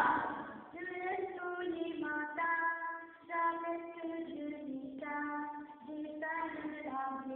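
A young girl singing a solo melody unaccompanied, one voice moving note to note with held notes.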